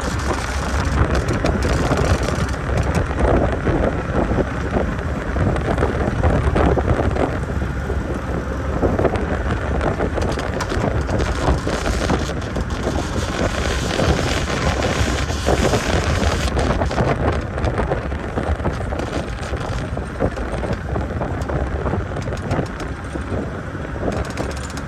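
Wind buffeting the microphone over the steady running of a speedboat's motor.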